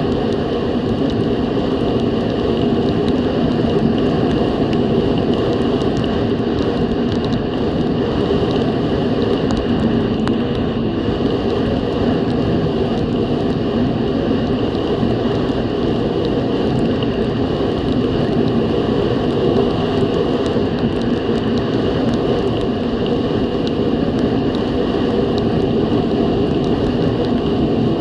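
Snowmobile engine running steadily at trail speed, heard from on the sled.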